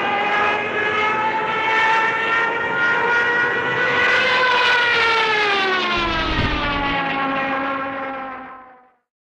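Hand-cranked mechanical air raid siren wailing, its pitch climbing a little and then sliding down as it winds down, fading out just before the end.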